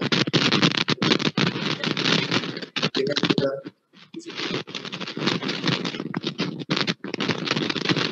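Loud scratching and rustling noise made of quick irregular strokes, in two long stretches broken by a short gap about three and a half seconds in.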